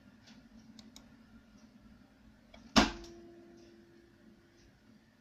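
A single sharp knock a little under three seconds in, as if a hard object was struck or set down, leaving a short ringing tone that fades over about two seconds. A few faint clicks come before it.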